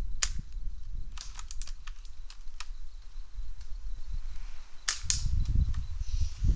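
Airsoft guns firing: sharp snapping cracks, one just after the start, a quick cluster of about five about a second in, and two more near five seconds. Low rumbling movement noise comes in over the last second and a half.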